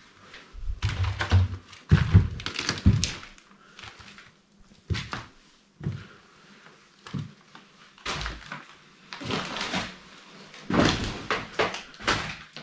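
Footsteps trampling scattered papers and debris on a floor, in irregular steps with rustling and crunching and some heavy thuds.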